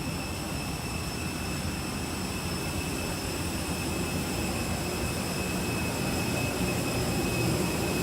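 Steady rumble and hiss of an Airbus A320 before departure, with several steady high-pitched whines over it, growing slightly louder near the end.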